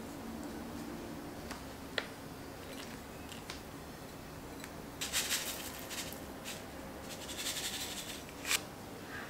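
Sesame seeds and Japanese rice seasoning sprinkled over a bowl of rice: a light tick about two seconds in, two short stretches of hissy rattling around five and seven seconds, and a sharp click near the end.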